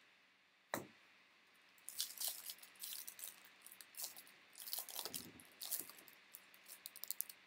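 Topps baseball cards being handled: a sharp click about a second in, then a run of quick crackling and rustling from about two seconds in until near the end.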